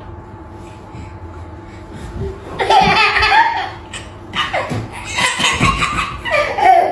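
A toddler laughing in repeated loud bursts, starting about two and a half seconds in after a quiet stretch.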